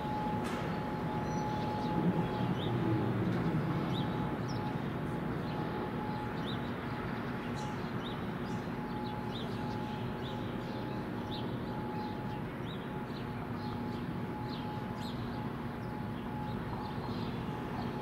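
Distant outdoor warning sirens holding a steady alert tone that fades in and out, over a steady background rumble. A bird chirps about once a second.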